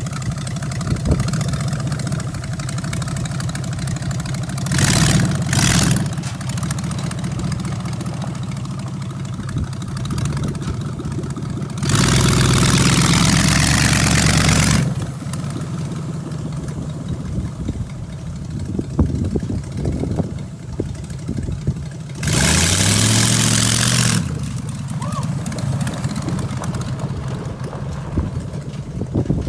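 Ford 302 V8 engine in a 1951 Ford F1 pickup running steadily, with three loud bursts of throttle as it is driven: briefly about five seconds in, for about three seconds from twelve seconds in, and again about twenty-two seconds in, the pitch climbing and falling.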